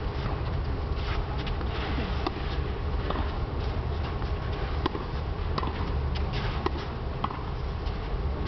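Tennis balls struck by rackets in a rally: sharp pops of the strikes and bounces, about one every second or so, over a steady low rumble.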